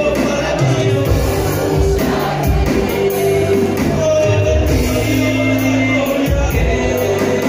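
Live worship music: an electronic keyboard playing held chords and bass notes under singing voices, with some shouts from the congregation.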